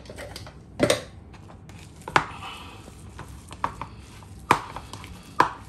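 A spoon knocking and scraping in a bowl as mashed potato stuffing is mixed: about five sharp knocks at uneven intervals.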